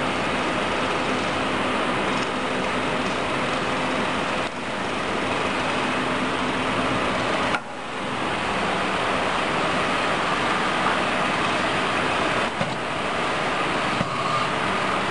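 A vacuum OCA laminating machine running steadily: a constant hiss with a low hum. The sound dips briefly twice, about four and a half and seven and a half seconds in.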